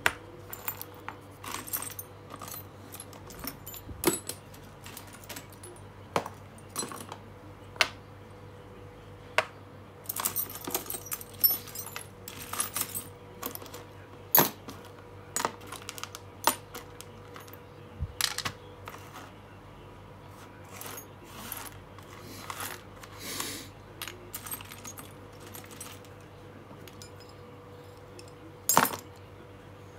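A pile of old, partly rusty metal screws clinking and jingling as hands rummage through it and pick screws out: irregular sharp clicks, with a busier stretch of jingling about ten seconds in and one louder clink near the end.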